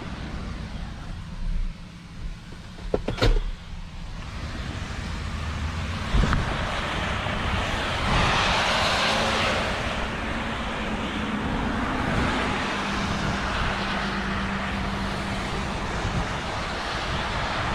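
Road vehicle noise: a steady low motor rumble with tyre and wind noise that swells from about six seconds in and is loudest around eight to ten seconds. A brief cluster of sharp clicks about three seconds in.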